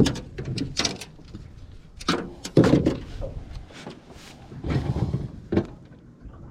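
A series of knocks, clicks and heavier thumps, as of gear being handled and set down in a small fishing boat.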